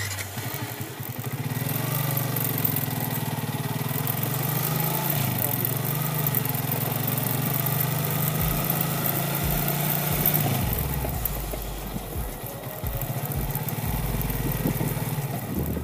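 Motorcycle engine running while riding, its note steady for several seconds and then dropping about ten seconds in.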